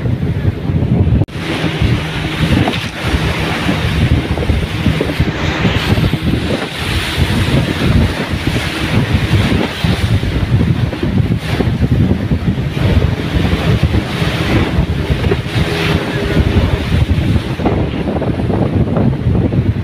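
Outboard-powered longboat under way on a river: the motors run steadily under rushing water, with heavy wind buffeting on the microphone. The sound breaks off briefly about a second in, then carries on.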